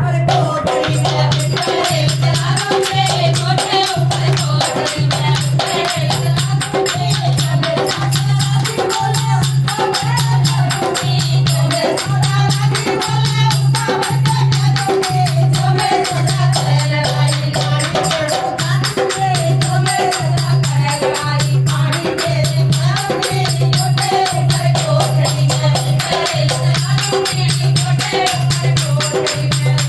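Indian folk song played on dholak: a steady, repeating low drum beat with jingling, rattling percussion over it, and singing.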